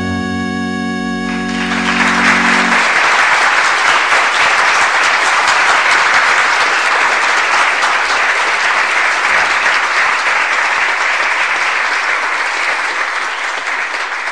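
A song ends on a held chord, and an audience then applauds steadily for about twelve seconds, the applause thinning out near the end.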